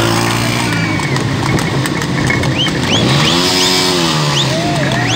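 Motorcycle engines running at speed with road noise, heard from a motorcycle keeping pace alongside; one engine's pitch rises and falls about three to four seconds in.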